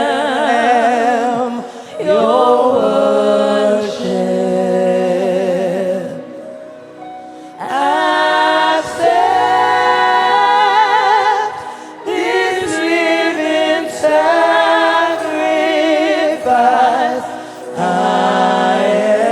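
Gospel worship singing: a lead voice and choir holding long notes with vibrato, with a brief quieter lull about six seconds in.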